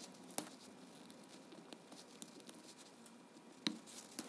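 Faint scraping and clicking of a small screwdriver picking at the wax-sealed terminal end of an old metal-can paper capacitor, with a few sharper ticks about half a second in and twice near the end.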